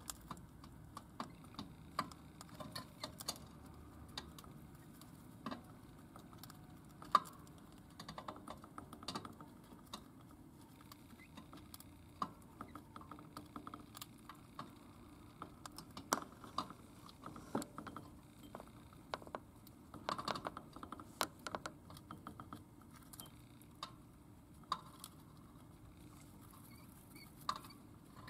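A lutino budgerigar pecking at seeds in a ceramic bowl: irregular small clicks and taps of beak on seed and dish, with one louder click about seven seconds in.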